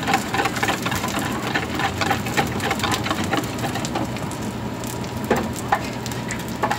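Batter pancakes and vegetables sizzling in two frying pans, with frequent light clicks and scrapes from a metal spatula and a whisk beating batter in a plastic bowl.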